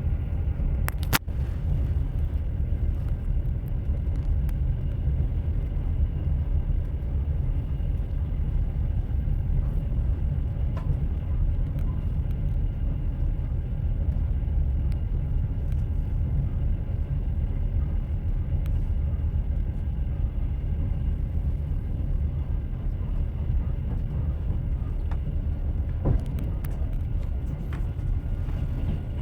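Train wheels running on rails: a steady low rumble with a few sharp clicks, one about a second in and another near the end.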